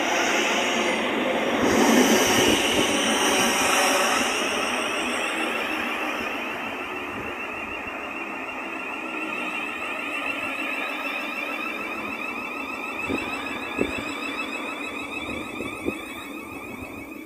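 Thameslink Class 700 electric multiple units moving through the platform: a steady rumble of wheels and running gear, loudest in the first few seconds and then fading, with a few sharp clicks near the end.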